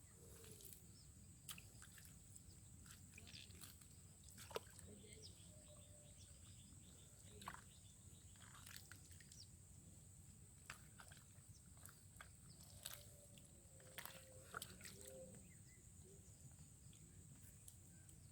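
Near silence: faint outdoor ambience with scattered small clicks and taps, a few faint chirps, and a thin steady high tone throughout.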